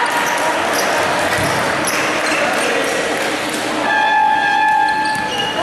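Basketball game sounds echoing in a large gym: the ball bouncing, players moving on the hardwood court, and voices. About four seconds in, a steady high tone holds for over a second.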